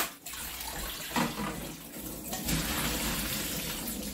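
Kitchen tap running into a bowl as webfoot octopus is rinsed by hand, water splashing steadily, with a couple of brief surges as the bowl is moved.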